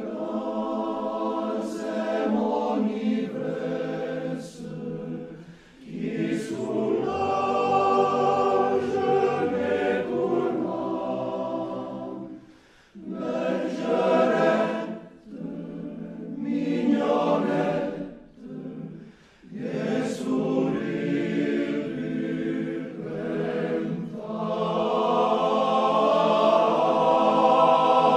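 Alpine choir singing a cappella in harmony, in long phrases broken by several short pauses.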